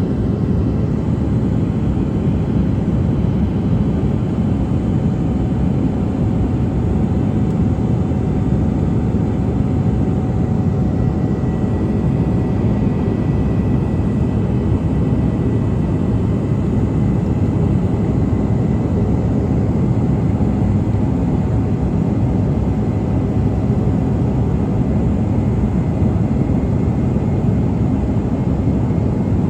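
Steady roar of a Bombardier CRJ200's rear-mounted GE CF34 turbofans and rushing air, heard inside the cabin, with faint steady whining tones over the low rumble.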